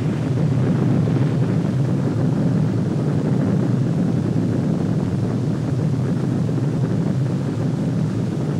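A large fire burning: a steady, low rumbling noise with no separate blasts.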